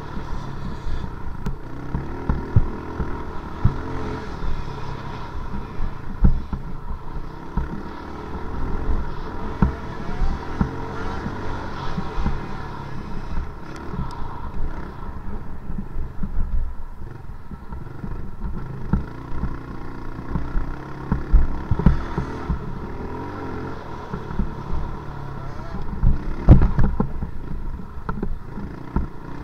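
Small off-road vehicle's engine running at a fairly steady pitch, with frequent knocks and rattles as it rolls over rough, churned dirt; the hardest jolts come near the end.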